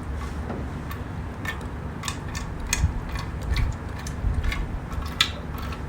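Irregular light clicks and taps, a dozen or so, over a low steady rumble.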